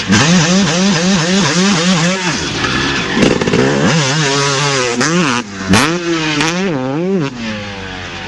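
A 450cc four-stroke motocross bike engine being revved in quick repeated blips, about three a second, then in slower, longer revs that fall back toward idle near the end.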